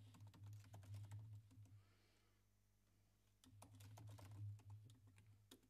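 Faint typing on a computer keyboard: two runs of quick keystrokes with a pause of about a second and a half between them.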